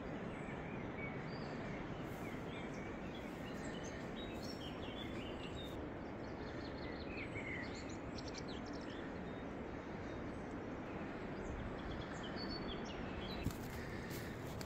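Rural outdoor ambience: a steady background hiss with small birds chirping now and then, most often through the middle of the stretch and again near the end.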